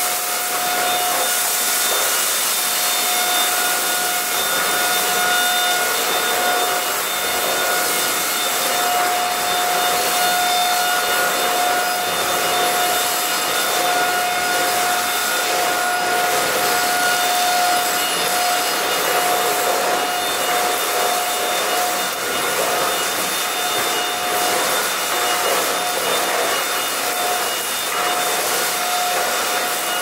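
Alfawise AR182BLDC cordless stick vacuum running steadily with its powered brush head on a tiled floor, sucking up scattered rice: a constant high motor whine over the rush of air.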